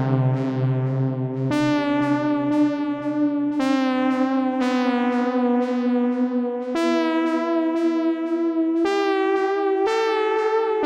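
Arturia Synthi V software synthesizer, an emulation of the EMS Synthi AKS, playing a line of held notes whose pitch steps every one to three seconds. The bright top of each tone falls away and restarts about twice a second.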